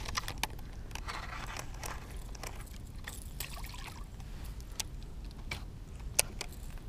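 Water splashing and trickling with scattered short clicks and scrapes, over a steady low rumble.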